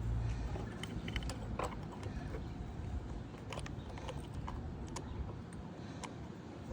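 Scattered light clicks and taps of small parts being handled as a cleaned carburetor and its O-ring are fitted back onto a lawn mower engine, over a low background hum.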